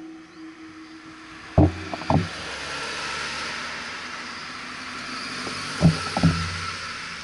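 A car passing close across the junction, its tyre and engine noise swelling and then fading. Four dull knocks sound over it, two about a second and a half in and two about six seconds in.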